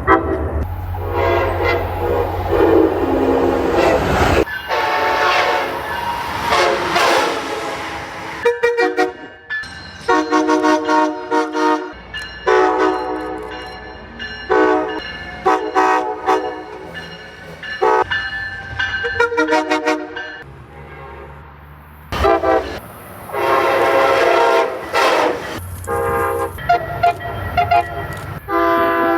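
MBTA commuter rail and Amtrak locomotive air horns sounding a series of short and long blasts, each a chord of several steady tones, with the low rumble of the train under some of them. The sound cuts from one train to the next several times.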